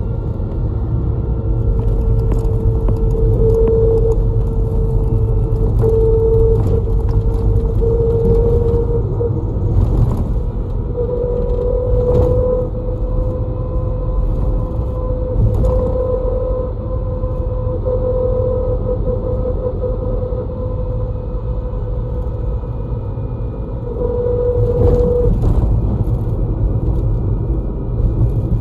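A route bus heard from inside the cabin while under way: steady engine and road rumble with a constant whine that steps up slightly about eleven seconds in, and a few short clicks.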